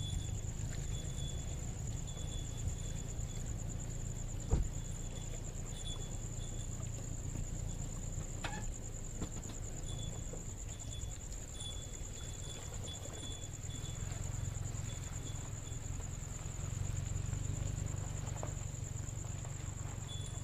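Insects trilling in one steady high note, with short high chirps coming and going, over a continuous low rumble. A single thump about four and a half seconds in is the loudest sound.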